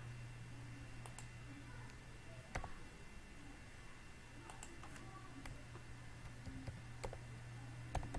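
Scattered clicks of a computer mouse and keyboard, about seven over the stretch, irregularly spaced, the sharpest about two and a half seconds in and near the end. A steady low hum runs underneath.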